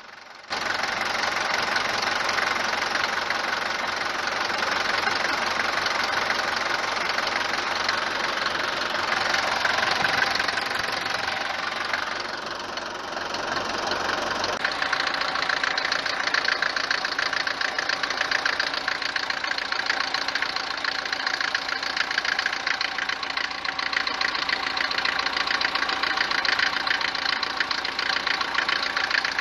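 Mercedes W124 diesel engine idling with a loud, rough knocking clatter. The sound changes character about halfway through. The mechanic takes the knock most likely for worn cylinder bores, and names the injector prechambers, the injectors or the injection pump timing as other possible causes.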